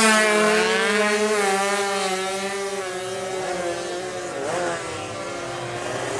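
Two-stroke drag bike engine running at high revs, fading and dropping slightly in pitch as the bike pulls away.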